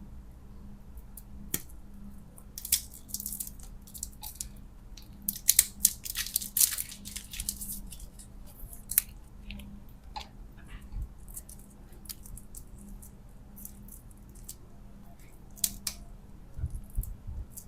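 Close-up handling of plastic candy packaging: scattered sharp clicks and bursts of crisp crinkling, busiest in the first half and again near the end, over a faint steady hum.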